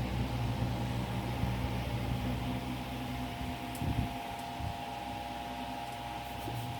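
Steady mechanical hum of a household machine, with several steady tones, and a brief low knock about four seconds in.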